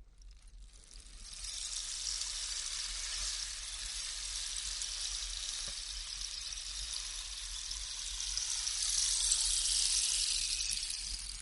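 Long whoosh sound effect: a sustained airy hissing rush that fades in about a second in, holds steady, swells louder near the end and then dies away.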